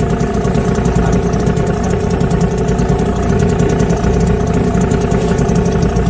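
Boat outboard motor running steadily at constant speed.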